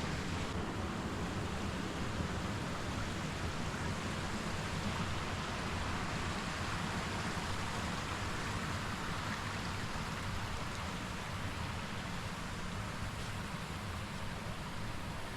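Forest creek running steadily: an even wash of flowing water with no breaks.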